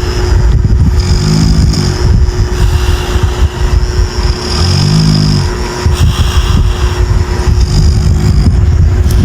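A person snoring loudly: a rough, rattling snore with a low droning tone that swells and fades about every three seconds, three breaths in all.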